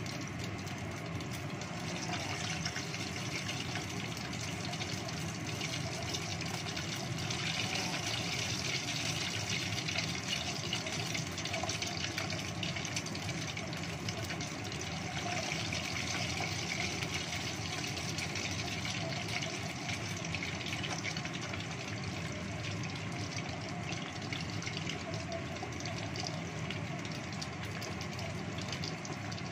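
Chicken wings deep-frying in hot oil in a pot, a steady sizzle and bubbling that swells at times, over the steady hum of a kitchen range-hood extractor fan.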